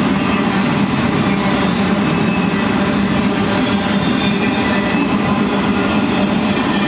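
BNSF intermodal freight train's cars rolling past, steel wheels running on the rails in a steady, unbroken noise.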